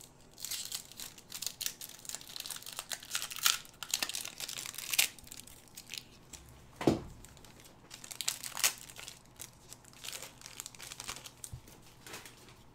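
Foil booster pack wrapper crinkling and tearing as it is opened, in irregular crackling rustles, with one sharp click about seven seconds in.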